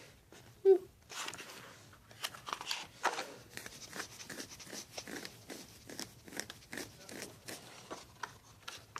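Soft, irregular crinkling and light clicking: handling noise of paper and fingers close to the microphone, with a brief small vocal sound just before a second in.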